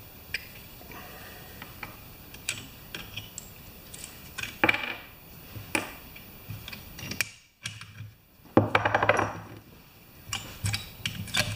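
Small steel transaxle parts (washers, gears and clips) clinking and rattling as they are handled and set down: scattered light clinks, with short denser rattles about halfway through and again around nine seconds in.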